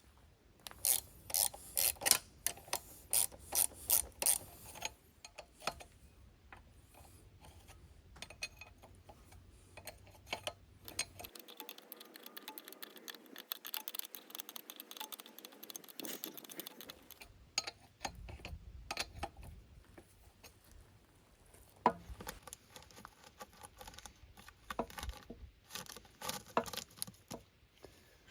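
Hand tools working on steel cylinder parts: a quick series of about ten sharp clicking strokes in the first few seconds, then scattered light clicks and rubbing of metal.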